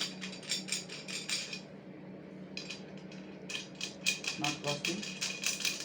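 Rapid metallic clicking in two runs, a pause between them: a wrench working the nuts and bolts tight on a steel chainsaw mill frame.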